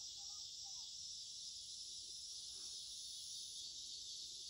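Faint, steady chorus of insects trilling in an even high band without pause, typical of a late-summer evening.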